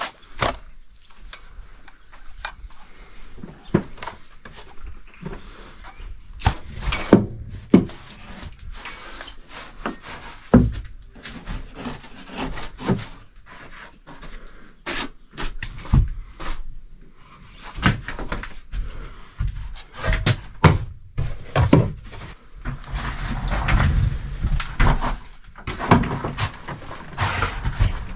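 Irregular knocks and bumps on wood, then steady scraping on wood for the last few seconds.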